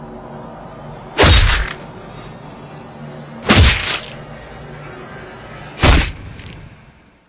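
Background music with a loud crash about every two and a half seconds, three in all, each dying away within half a second. The music fades out near the end.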